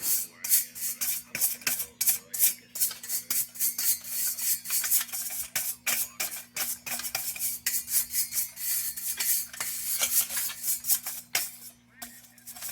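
Rapid, scratchy scraping and rubbing strokes as caked droppings and nest debris are scraped off the inside of an old kerosene heater, with a steady low hum underneath.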